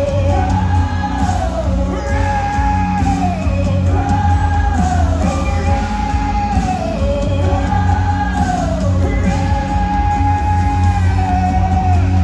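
Live worship band playing loud with singing. A sung phrase that falls in pitch repeats about every two seconds over heavy bass.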